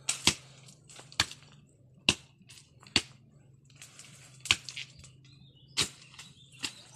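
A blade chopping into brush and weeds at the base of a tree: sharp cuts roughly once a second, a few in quick pairs.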